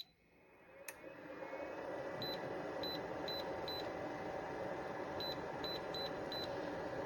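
Portable clothes dryer switching on with a click about a second in, its fan spinning up to a steady whir. Over the whir come eight short high beeps in two groups of four, from its control panel.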